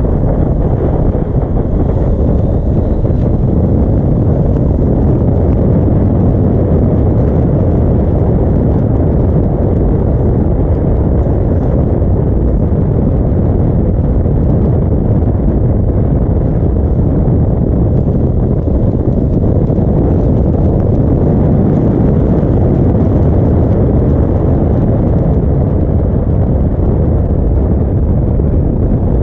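Yamaha V-Max 1200's V4 engine running at a steady cruise, mixed with heavy wind noise on the microphone. It stays loud and even throughout, without revving up or down.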